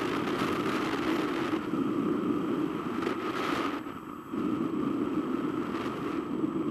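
Wind rushing over the microphone of a camera mounted on a hang glider in flight: a steady, noisy rumble that dips briefly about four seconds in.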